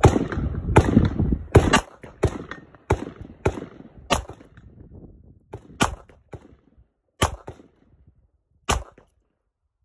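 A Taurus Model 605 .357 Magnum snub-nose revolver firing .38 Special rounds in a string of sharp shots. The first shots come loudest and quickest, a little under a second apart, and fainter reports follow at wider gaps of one to one and a half seconds.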